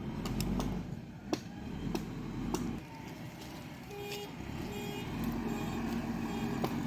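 JCB excavator's diesel engine running steadily, with scattered sharp knocks and clicks over it and, in the second half, a short tone repeating about twice a second.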